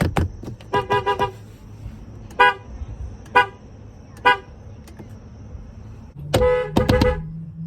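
Car horn honking in short toots: a quick run of about four beeps about a second in, then three single short toots about a second apart, and a longer honk followed by two more short ones near the end.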